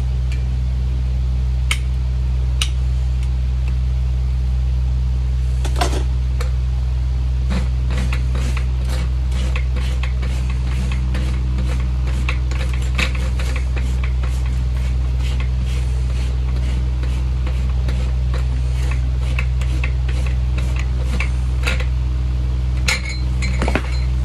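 Farrier's hand tools working on a horse's hoof on a hoof stand: a long run of light, irregular metallic clicks and taps, over a steady low hum.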